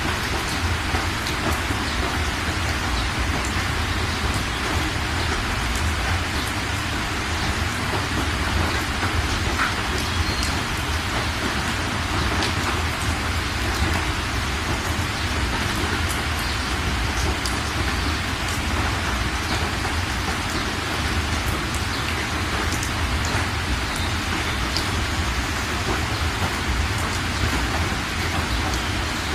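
Heavy rain pouring down steadily, with scattered faint taps of drops landing close by.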